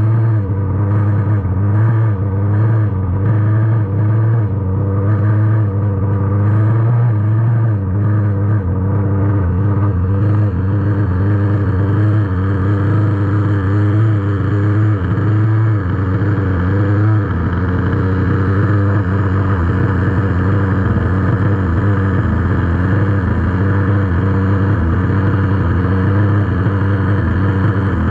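Losi nitro buggy's small glow-fuel engine idling continuously, its pitch wavering a little before settling about two-thirds of the way through. It is being run on the rich side during break-in.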